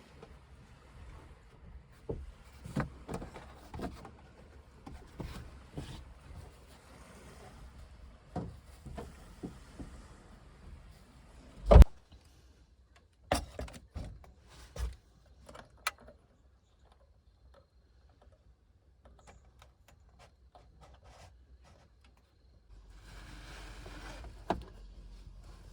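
Scattered knocks and clatter of things being handled, with one loud thump about twelve seconds in. A few seconds of near silence follow, then a faint steady hiss near the end.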